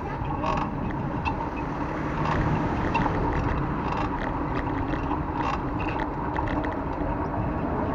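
Bicycle ride: steady wind and rolling noise on the microphone, with short irregular clicks and creaks from the bicycle's creaking saddle.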